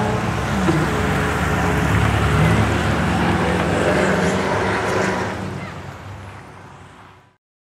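A motor vehicle's engine running steadily with road noise, fading away over the last couple of seconds before cutting off.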